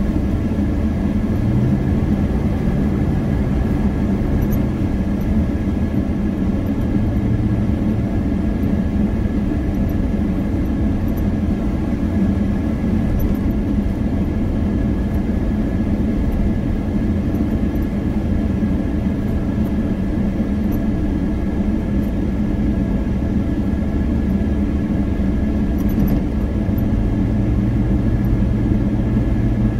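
An engine running steadily at constant speed, a loud low drone that holds throughout, its low tone briefly swelling near the start and again near the end.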